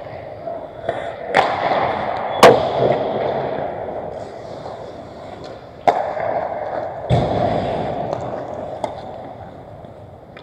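Ice hockey play on an indoor rink: about five sharp cracks of sticks and puck, the loudest about two and a half seconds in, each echoing through the arena over a steady rink din.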